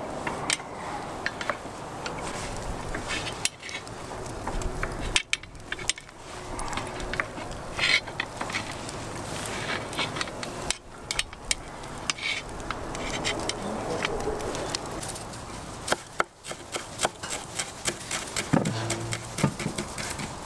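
Skewered meat sizzling and crackling over hot charcoal, a steady hiss with scattered pops and clicks. Near the end, a knife chops quickly on a wooden board, cutting onion.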